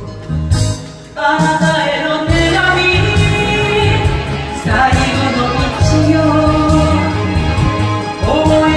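A woman singing a slow Japanese pop ballad into a microphone over recorded backing music, coming in again after a brief lull about a second in and holding long notes.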